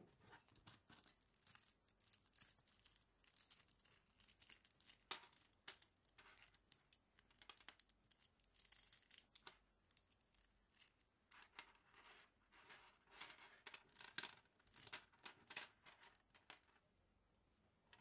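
Mini neodymium magnet balls clicking and snapping against each other as a cluster is pulled apart by hand and laid out as a chain: a fast, irregular run of faint sharp clicks that thins out near the end.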